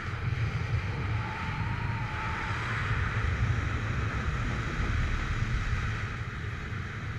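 Wind noise on the camera's microphone in flight: a steady rush of airflow with an irregular low buffeting rumble.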